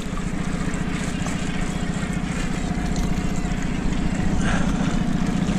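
Small outboard motor running steadily at idle.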